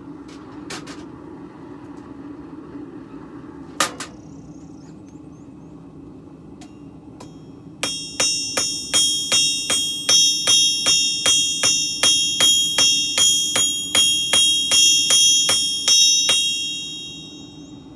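Blacksmith's hammer striking steel on an anvil in a steady run of blows, about three a second, each with a bright metallic ring that fades out after the last blow. A single sharp knock comes about four seconds in, and a steady low hum runs underneath.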